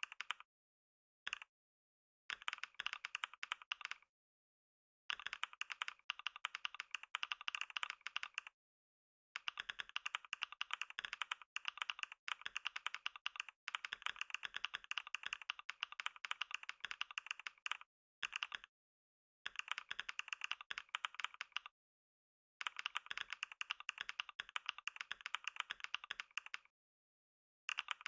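Computer keyboard typed on at speed-test pace: dense, rapid keystroke clicks in bursts of a few seconds, broken by short pauses.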